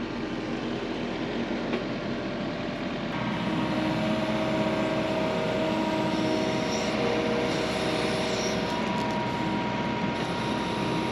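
Yanmar ViO55 mini excavator's diesel engine running. About three seconds in it gets louder and a steady hydraulic whine joins as the auxiliary hydraulics work the newly plumbed tilting bucket.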